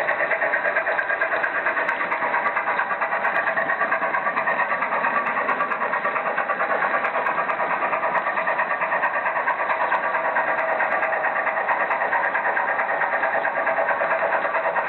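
Märklin model train running along the track, heard from a camera riding on the train: a steady rolling rumble of wheels and drive with a fast, even flutter.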